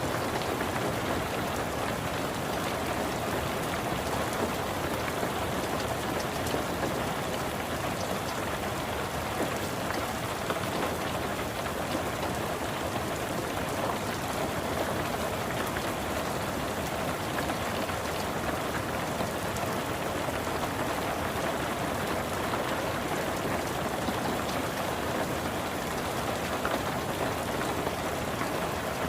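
Steady rain falling on a car's roof and windows, heard from inside the car: an even, unbroken patter with no thunder or other events.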